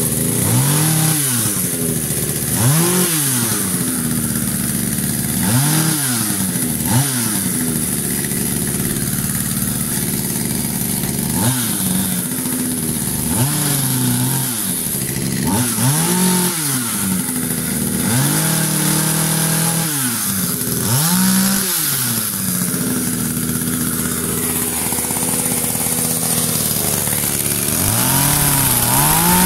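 Small two-stroke petrol chainsaw running, its engine speed repeatedly rising and falling every couple of seconds between steady stretches at a lower speed.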